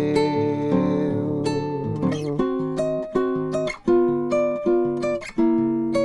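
Acoustic guitar playing a samba accompaniment with no singing: held chords at first, then from about two seconds in short plucked chords in a syncopated rhythm.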